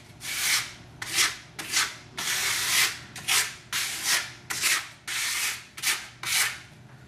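Hand trowel spreading and scraping tinted QuarryStone textured plaster across a board, about ten quick rasping strokes, two of them longer drags.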